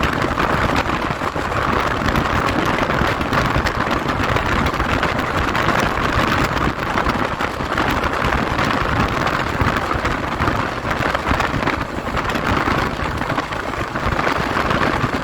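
Indian Railways AC Duronto Express running at speed, heard from on board: a steady rush and rumble of wheels on rails and wind, with faint scattered clicks.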